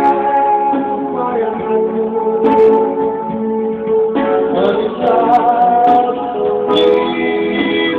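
Music: a song with strummed guitar and a singing voice.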